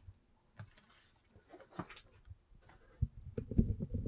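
Hardcover books, cardboard and bubble wrap being handled in a packing box: soft rustling and small clicks, then a run of dull thumps in the last second as a book is set down on the stack.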